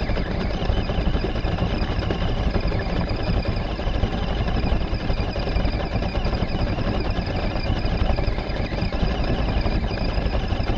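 Kyosho Blizzard radio-controlled snowcat running, its electric motor and tracks making a steady gritty rattle.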